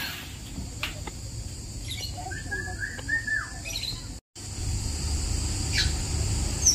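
Birds chirping and calling in an aviary: scattered short chirps and a few falling calls over a steady hiss. The sound drops out briefly about four seconds in.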